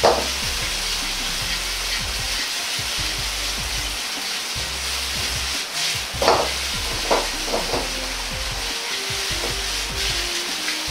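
Shredded pork sizzling steadily in oil in a Chinese wok on medium heat as it is stir-fried with cooking chopsticks until no red remains. A few short clicks of the chopsticks against the wok come at the start and in a cluster about six to eight seconds in.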